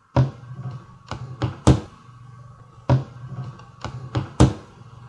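Computer mouse clicks, about eight sharp, irregularly spaced clicks in five seconds, the loudest near the two-second mark and just before the end, over a steady low hum.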